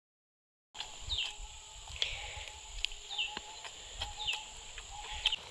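After a moment of dead silence, outdoor ambience: a bird giving repeated short falling chirps about once a second over a steady high insect drone.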